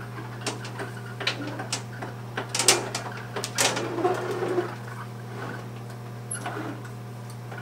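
Knocks, rattles and scraping from a heavy industrial sewing machine table, with the machine head on it, as it is pushed across the floor. The loudest clatter comes about two and a half to four and a half seconds in, over a steady low hum.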